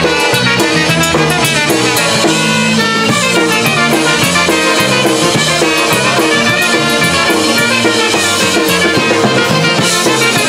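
Live polka band playing: horns over a drum kit keeping a steady beat.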